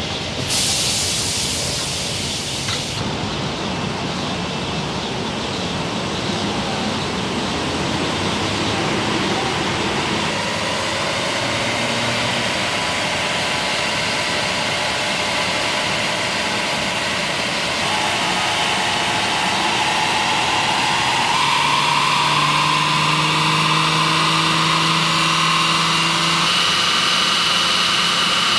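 New BMW 4 Series Coupé run up on a roller dynamometer test stand: tyres spinning on the steel rollers with engine and drivetrain running, a steady rushing noise with whining tones that slowly rise in pitch and level. A burst of high hiss starts about half a second in and stops after a couple of seconds.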